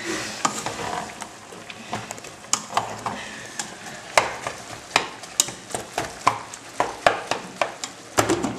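Minced meat frying in a stainless steel pot with a steady sizzle, while a spoon stirs it with irregular scrapes and clicks against the pot. Near the end a glass pot lid knocks against the rim.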